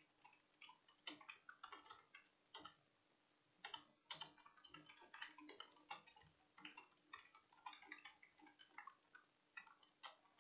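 Faint, irregular clicking of keystrokes on a computer keyboard, coming in quick runs of typing.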